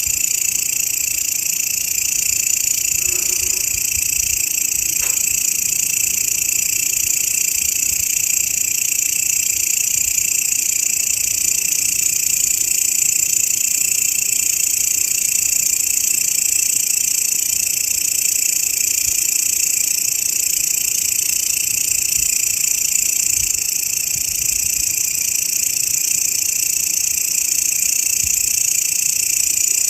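Grasshoppers stridulating in a continuous, high-pitched buzz that holds steady without a break.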